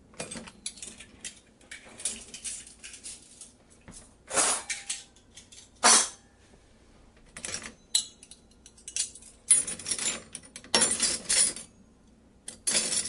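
Small plastic pieces of a toy miniature kitchen set being handled: irregular clicks, clatters and light rattles, with a sharp knock about six seconds in and busier clattering near the end.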